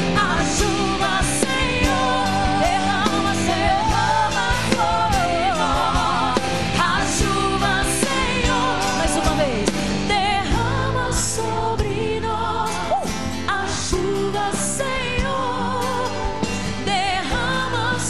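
Live gospel worship music: a female singer singing with strong vibrato over a band with electric guitar and keyboard, loud and continuous.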